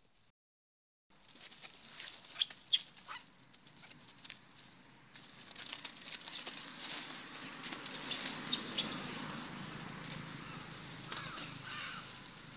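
Dry leaf litter rustling and crunching, with a few sharp crackles at first and a busier, steady rustle from about halfway on. A few short high squeaks near the end.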